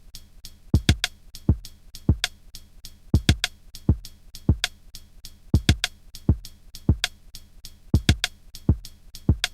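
Electronic drum-machine beat: deep kick drums that drop in pitch, with sharp clicky hits between them, in a repeating pattern.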